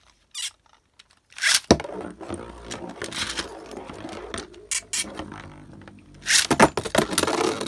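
Beyblade ripcord launches: a sudden ripping launch about a second and a half in, then a spinning top scraping across the plastic stadium floor, and a second loud ripping launch near the end.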